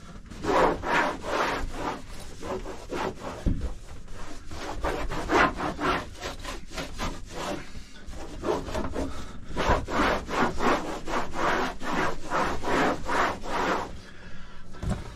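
A cloth scrubbing a fiberglass cabin inner moulding back and forth in rapid, regular strokes, about two to three a second, stopping shortly before the end.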